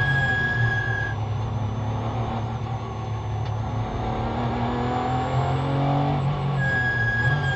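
Porsche 911 GT3's flat-six engine heard from inside the car at racing speed. The revs drop as it slows for a corner, then climb again with rising pitch from about four seconds in. A steady high-pitched tone sounds while the revs are high, cutting out about a second in and coming back near the end.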